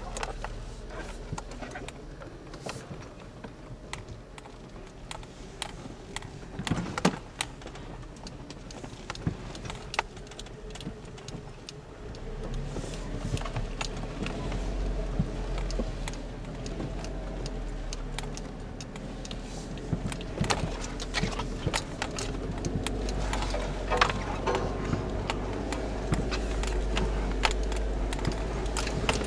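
A four-wheel-drive vehicle's cab rattling and clinking as it drives slowly over a rough, muddy off-road trail, with its engine running low underneath. The engine gets louder about twelve seconds in.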